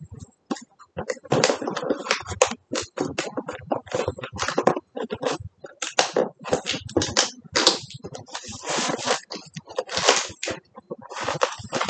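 Cardboard laptop box being worked open by hand: irregular scraping, rubbing and rustling of the cardboard flaps, in quick uneven bursts.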